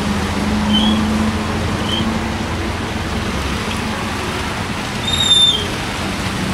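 Street traffic on a wet road: a steady low engine hum from running vehicles under an even wash of traffic and tyre noise, with a few short high squeaks, the loudest about five seconds in.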